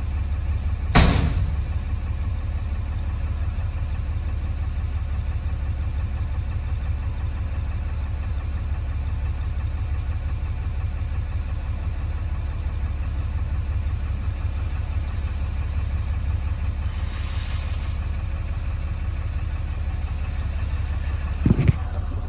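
Ram 5500's 6.7 L Cummins turbo-diesel idling steadily. A sharp knock comes about a second in, a brief hiss about two-thirds of the way through, and a couple of knocks near the end.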